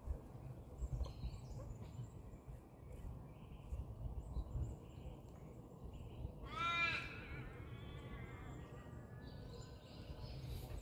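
A bird's single loud cawing call about two-thirds of the way through, trailing off into a fainter, drawn-out falling note, over a low rumble on the microphone.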